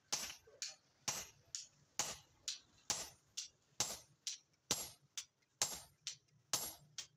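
Sledgehammer blows on a handled top tool held against a red-hot axe head on an anvil: steady, evenly spaced metallic strikes, about two a second.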